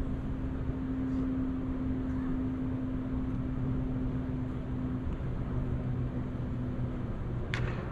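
Steady low mechanical hum of the air-supported dome's blower and ventilation fans, with a held tone that fades out near the end. A single sharp knock comes just before the end.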